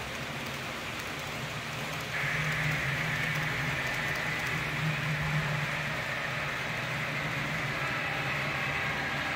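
Model freight trains running around a multi-level track helix: a steady hiss of wheels on rails over a low motor hum, getting louder about two seconds in.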